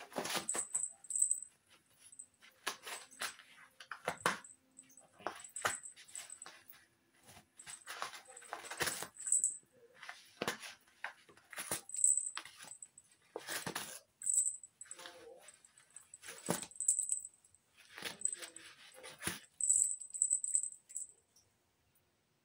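Toilet paper rustling and tearing in irregular bursts as a cat bites and claws through a pile of shredded tissue, with the small metal tag on its collar jingling now and then.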